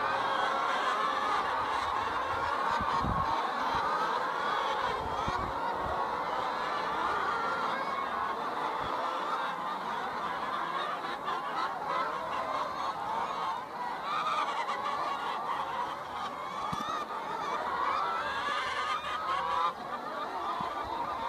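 A large flock of brown hens calling and clucking together in a dense, continuous chorus of overlapping voices.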